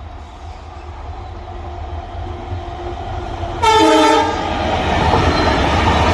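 WDG4-class diesel locomotive approaching, its running noise growing steadily louder, with one short, loud horn blast about three and a half seconds in. After the horn, the louder rumble of the train passing carries on.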